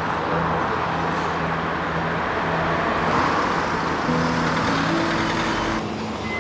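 Steady road traffic noise with background music holding low sustained notes over it; the deep traffic rumble cuts out near the end.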